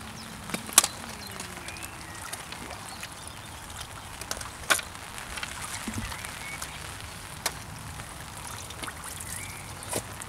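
Water splashing and dripping at a pond's edge as a landing net is worked in the water and lifted out, with a few sharp knocks of handling gear.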